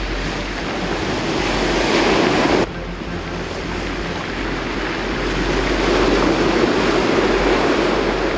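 Surf breaking and washing up a pebble beach, with wind buffeting the microphone. The wash swells twice; the first swell cuts off suddenly about two and a half seconds in.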